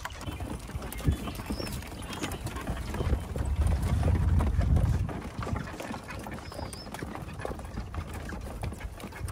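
A harnessed horse's hooves clip-clopping on a dirt track as it pulls a light driving cart, with the cart rattling along behind. A low rumble swells in the middle.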